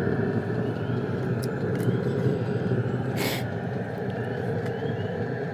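2 kW diesel air heater running through its heat-up cycle: a steady whir and rumble of its blower and burner. A brief hiss about three seconds in.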